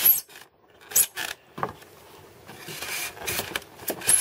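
Plastic connector webs being pushed into the slots of foam insulated concrete form panels: sharp clicks as pieces go in, with a stretch of scraping rub of plastic against foam about three seconds in.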